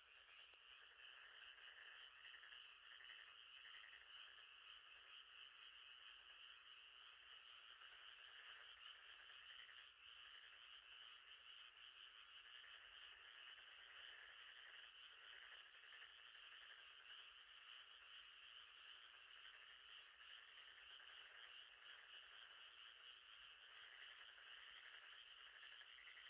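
Faint, steady night chorus of frogs, a continuous pulsing trill with no pauses.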